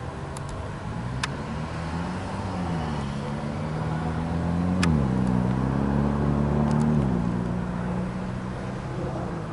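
An engine running with a low hum. Its pitch rises about two seconds in, dips and recovers about five seconds in, and drops about seven seconds in, and it is loudest in the middle. A few sharp clicks are heard over it.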